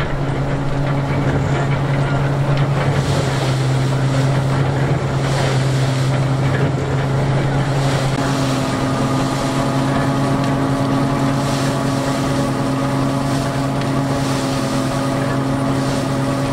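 Marshall threshing machine running, belt-driven by a 1928 Marshall steam engine: a steady, loud humming drone from the spinning machinery, with its note filling out with higher tones about halfway through.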